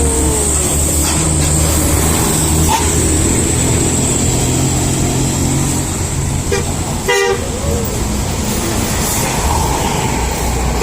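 Bus engine running under load, with short toots of a Basuri telolet musical horn and a quick run of rapid pulses about seven seconds in.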